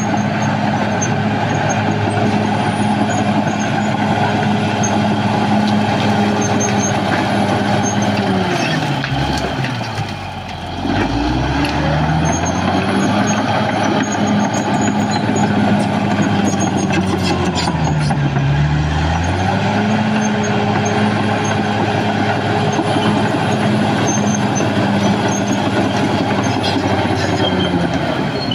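Caterpillar D6R XL bulldozer's diesel engine running at high, steady revs, with a faint high whine above it. Twice the engine speed sags and then climbs back: about a third of the way in, and again past the middle.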